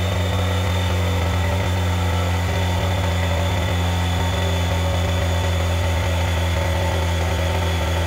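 Saturn electric inflatable-boat air pump running on a 12 V battery in its high-pressure stage, pumping up a boat's air chamber. It is a steady, unchanging low hum with a stack of overtones.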